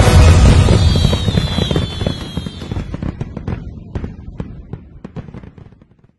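Fireworks going off: dense bangs and crackling pops, loudest at the start, then thinning out and fading away until they stop about six seconds in.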